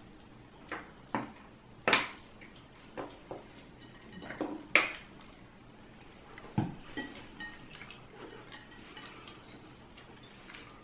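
Irregular clinks and taps of cutlery and plates, with the small wet sounds of people eating, as a meal is eaten at a table. The taps are sparse and uneven, a few every second or two, and grow fewer after about seven seconds.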